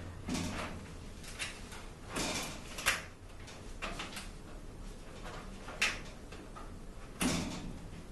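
Metal storage cabinet door and hinge being shifted and knocked by hand while the door is lined up with its mounting holes. Scattered scrapes and clanks, with sharp clicks about three and six seconds in and a longer scrape near the end.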